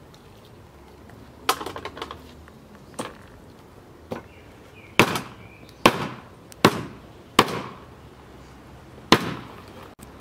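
Knife chopping through a large raw fish onto a wooden cutting board: about eight sharp chops, spaced unevenly, with the loudest four coming in quick succession in the middle and one more near the end.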